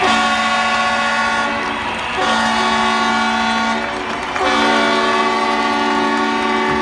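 Ice hockey arena goal horn, a deep chord-sounding air horn, blowing three long blasts of about two seconds each that run almost together.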